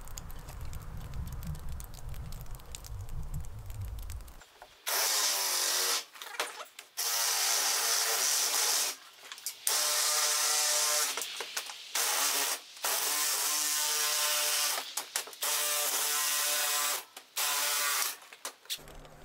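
Cordless drill driving a Malco Turbo Shear attachment through a ribbed steel siding panel. The motor whines over the hiss of the cut in about seven runs of one to two seconds each, with short stops between them, starting a few seconds in after a low rumble.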